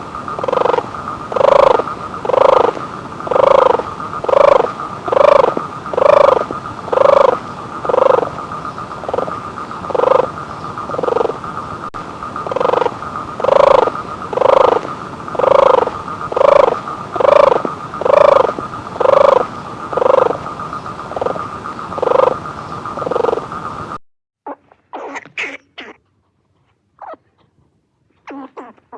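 Repeated croaking animal call, about one a second, over a steady high-pitched drone. The calling stops a few seconds before the end, and a few short, scattered sounds follow.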